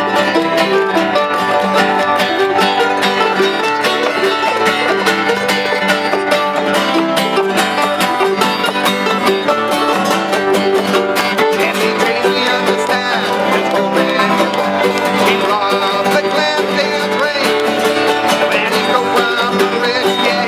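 Live acoustic band playing an upbeat song on plucked string instruments, the notes coming thick and steady.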